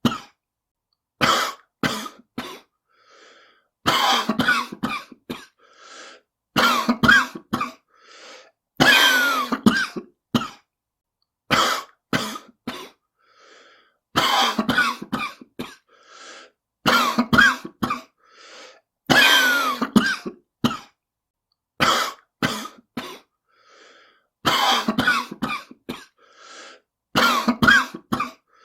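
A person coughing in repeated fits, about every three seconds. Each fit is a hard, loud cough followed by two or three shorter ones. It is presented as a smoker's cough.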